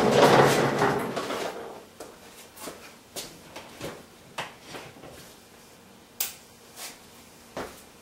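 Light plastic clicks and knocks, about nine of them spaced irregularly, from hands handling a wall-mounted swivel power strip and the plugs in it. A broad rushing noise fades out in the first second and a half.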